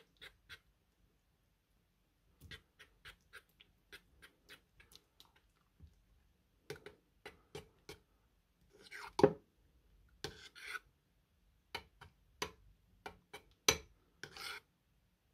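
Metal spoon stirring thick slime in a ceramic bowl: an irregular string of short clicks and scrapes, with a few longer wet squishes, the loudest about nine seconds in.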